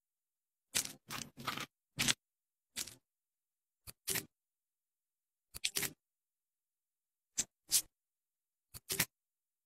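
Sound effects of an animated hair-removal clip: tweezers plucking hairs from skin, about a dozen short clicks and pops in small groups, with dead silence between.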